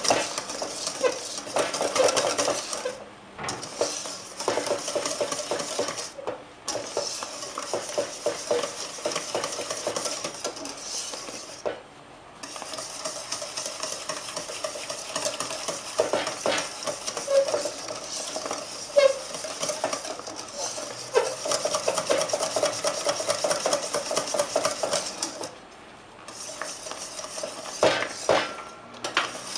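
Wire whisk beating thick custard cream fast in a stainless steel bowl, its wires scraping and rattling against the metal in rapid strokes, with a few brief pauses.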